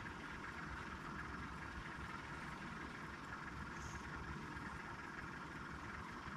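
Faint, steady low rumble with a soft hiss, with no distinct events.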